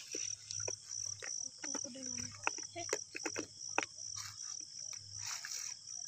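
A cricket chirping steadily at night in a pulsing rhythm, two or three pulses a second, with scattered sharp little clicks and taps close by.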